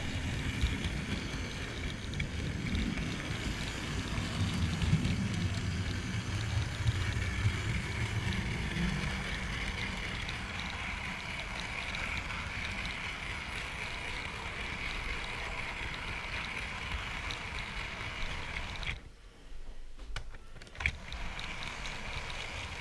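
Model train running along the track, heard from a camera riding on the wagon: a steady rumble and rattle of wheels on rail with a constant whine. The running noise cuts out sharply about nineteen seconds in as the train stops, followed by a few clicks.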